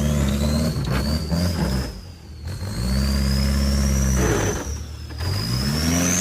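Off-road 4x4's engine revving in bursts: uneven revs, a dip, then revs held high for about a second and a half before dropping, and climbing again near the end. A thin high whine rises and falls along with the revs.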